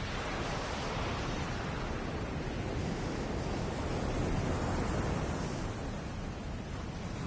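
Small waves breaking and washing up a sandy beach: a steady rush of surf that swells gently and eases off.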